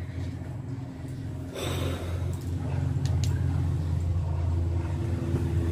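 A steady low hum that gets louder about two seconds in, with a brief rustle and a few light clicks.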